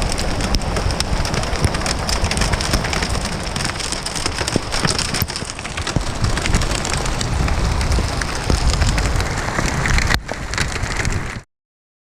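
Hailstorm: hail and heavy rain pelting down, a dense, loud patter of countless small hits over a low rumble. It cuts off abruptly near the end.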